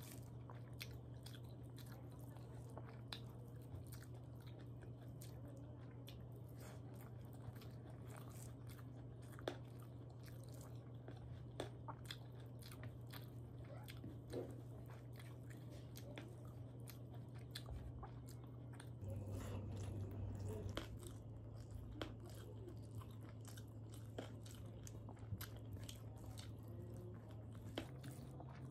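Close-miked chewing and mouth sounds of a person eating rice and dal by hand: soft, scattered clicks and small crunches, with a somewhat louder stretch about two-thirds of the way through. A steady low hum runs underneath.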